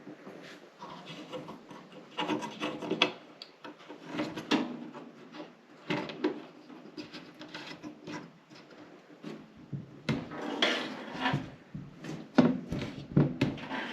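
Protective plastic film being peeled and rubbed off a new PC case: irregular bursts of scratchy rubbing and rasping, coming in several clusters.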